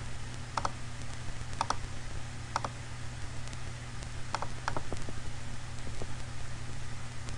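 Computer mouse clicks, about six spread unevenly, each a quick press-and-release pair, over a steady low hum.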